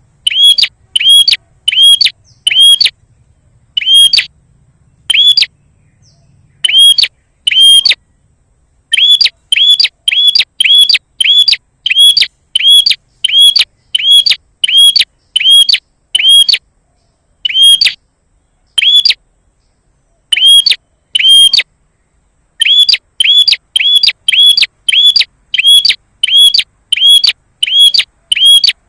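Prenjak birds calling: loud, sharp chirps repeated rapidly, about three a second, in runs broken by short pauses. This is a lure ('pancingan') call meant to provoke other prenjak into answering.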